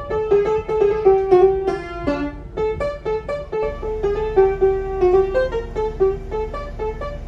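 Solo piano playing a simple melody of single notes at a steady, moderate pace: a young player's practice piece used as background music.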